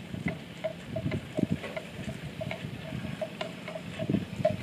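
Wind buffeting the microphone in uneven low gusts, with a faint short note repeating about three times a second.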